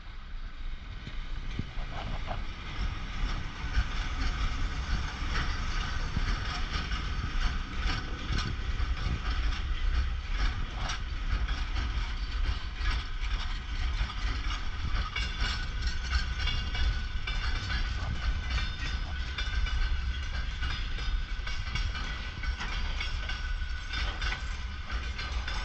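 Freight train passing close by: a VL11M electric locomotive hauling an unpowered VL80S in tow, then a long line of boxcars. A steady heavy rumble builds over the first few seconds, with wheels clacking over rail joints throughout. The locomotives pass in roughly the first half and the freight wagons follow.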